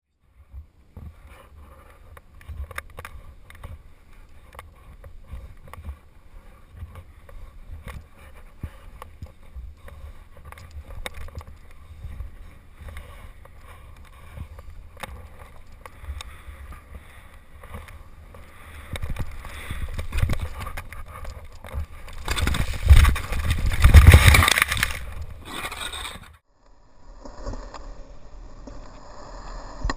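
Wind buffeting the microphone with a low rumble and scattered clicks. It swells to its loudest about 22 seconds in, cuts off suddenly near 26 seconds, and a steadier hiss follows.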